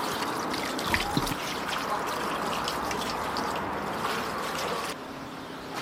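Water poured from a terracotta clay jug in a steady trickle, splashing onto lettuce leaves in a copper basin as they are washed. The pouring stops about five seconds in.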